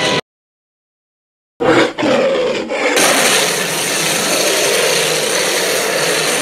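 Fictional dinosaur roar sound effect: a sound cuts off just after the start, then after a second and a half of silence a loud, rough monster roar begins and runs on steadily.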